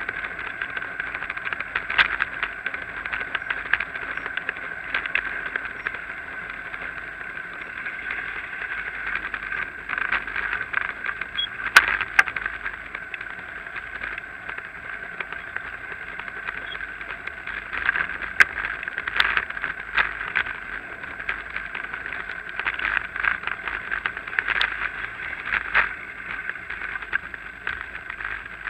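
Bicycle riding over paving slabs, heard through a Drift HD170 action camera carried on the bike: a steady rattle and road noise, with scattered sharper knocks over bumps in the paving.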